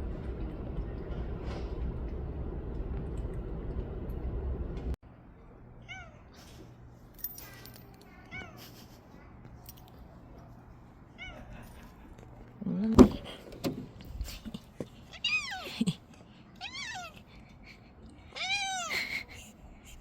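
A cat meowing again and again in short arched calls, faint at first and louder toward the end. Before the calls begin, a steady low rumble of background noise cuts off suddenly about five seconds in, and there is one sharp knock, the loudest sound, about halfway through.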